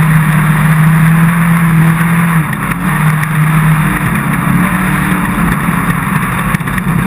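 Off-road race car engine running steadily at speed, its note shifting briefly a couple of seconds in, over a constant rush of wind and road noise.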